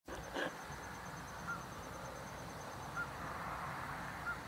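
A goose honking in short single calls, about one every second and a half, over steady outdoor hiss, with a brief knock near the start.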